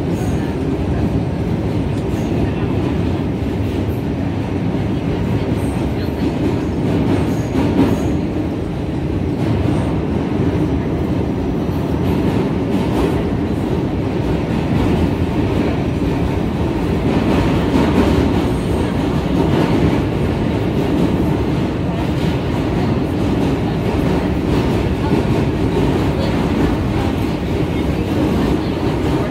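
New York City subway B train heard from inside the car while crossing a steel truss bridge. The train runs steadily with a continuous low rumble of wheels on rail and occasional clicks over rail joints.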